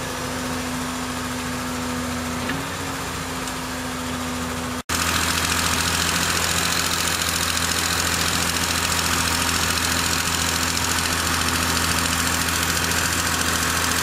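Diesel engine of a wheeled feller buncher running steadily with a low hum. The sound cuts out for an instant about five seconds in, then carries on louder.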